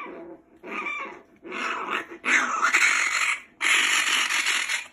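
Young raccoon giving a run of harsh, raspy cries while being rubbed dry in a towel after a bath, the later cries longer. This is the protest of an upset animal being handled.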